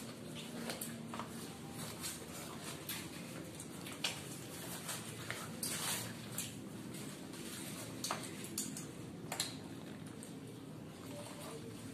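Two people eating egg rolls: biting and chewing with scattered wet mouth clicks and smacks, and the paper wrappers crinkling as they are peeled back, most strongly a little before halfway.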